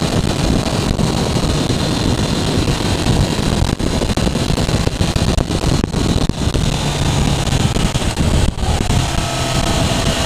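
Motorcycle riding at speed, wind buffeting the bike-mounted microphone over the engine running underneath. Near the end a steadier engine tone comes through the wind.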